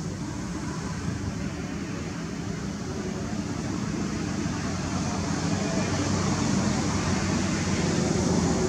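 A steady low engine-like hum that grows gradually louder, over a steady high hiss.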